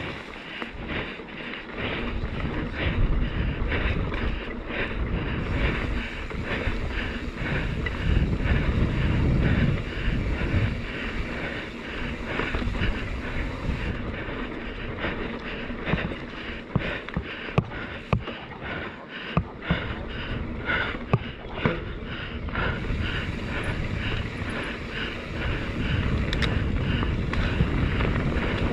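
Mountain bike ridden fast down a rough dirt trail: wind buffeting the camera microphone with a heavy rumble, over tyre noise and the bike clattering and knocking over bumps again and again.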